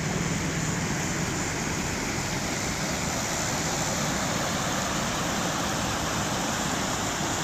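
Shallow river water rushing steadily over rocks and a low ledge.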